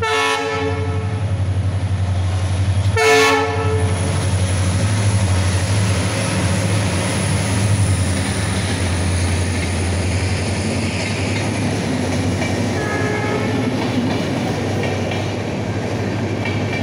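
Locomotive horn sounds twice, a blast at the start and another about three seconds in, as the train approaches. After that the locomotive and a long rake of passenger coaches pass close by with a loud, steady rumble of engine and wheels.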